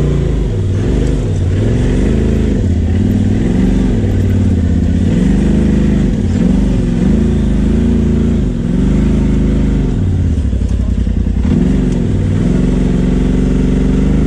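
Polaris RZR Turbo S's turbocharged twin-cylinder engine, revved in repeated short throttle blips, the pitch rising and falling every second or so as the UTV picks its way at low speed over a rutted dirt trail. The revs dip lower about ten seconds in, then are held higher near the end.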